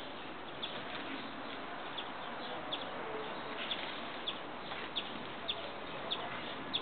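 A bird giving a short, high chirp over and over, evenly spaced somewhat under a second apart, over a steady hiss.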